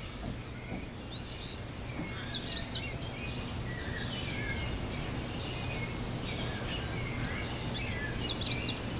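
Birds singing: two bursts of a quick run of high chirping notes, about a second and a half in and again near the end, with softer calls between, over a faint steady low hum.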